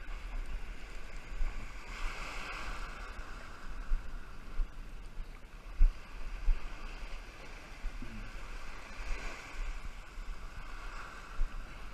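Wind buffeting the microphone and small surf waves washing onto the beach, the wash swelling and fading twice. A single sharp knock comes a little before six seconds in.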